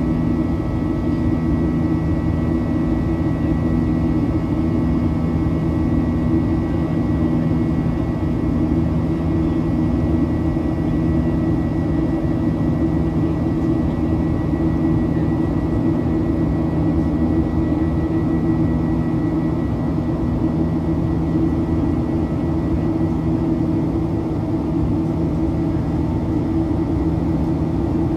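A Boeing 737-800's CFM56-7B turbofan engines heard from inside the cabin in the climb: a steady drone with several held tones over a low rumble, the multi-tone 'buzzsaw' of the fans at high thrust. One of the lower tones drops out about two-thirds of the way through.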